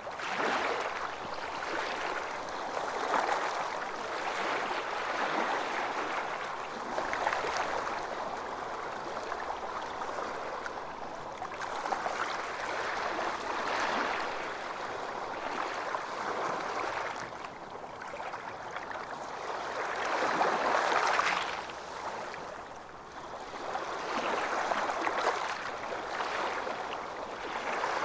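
Calm waves lapping and splashing against a boat, swelling and ebbing every few seconds, with the biggest swell about 21 seconds in.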